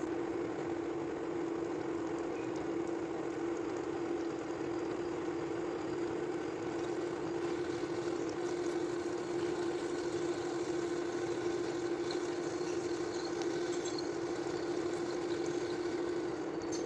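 Metal lathe running steadily with a constant tone while a twist drill in the tailstock bores into a spinning gear blank, coolant pouring and splashing over the cut.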